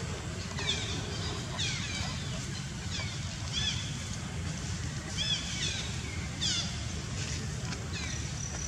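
Repeated short, high chirping calls, each sliding downward in pitch, about a dozen at irregular intervals, over a steady low rumble.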